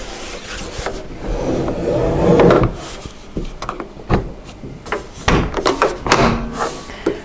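Plastic high chair legs scraping and knocking as the seat unit is pressed down onto the play table's legs, with a run of rubbing about two seconds in and several sharp clicks and knocks through the rest.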